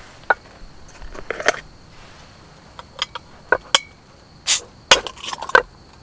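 Glass beer bottle being uncapped: a series of metallic clicks and clinks of the opener on the cap and glass, then a short hissing burst about four and a half seconds in as the cap comes off, followed by a few more clinks.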